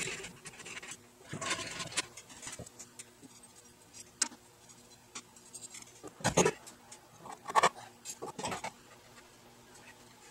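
Metal hardware being handled while threaded hanger rods are fitted to a ceiling-hung furnace: scattered rubs and light clicks, then a few sharper knocks between about six and nine seconds in.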